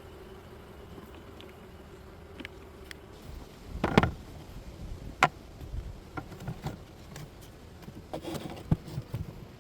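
Honey bees humming steadily around an open hive. After about three and a half seconds the hum fades, and sharp wooden knocks and clunks follow as hive parts are handled. The loudest knock comes about four seconds in, with more around eight to nine seconds.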